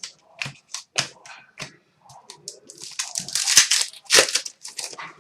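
Trading cards and their packaging being handled: a few short sharp snaps in the first two seconds, then a louder burst of crinkling and rustling in the second half.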